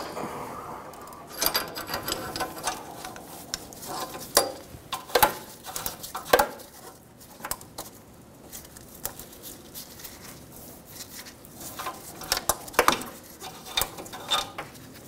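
Ratchet and 22 mm O2 sensor socket clicking and clinking in short, irregular bursts while a downstream oxygen sensor is loosened from the exhaust pipe, with a few sharper metal knocks as it is worked free by hand.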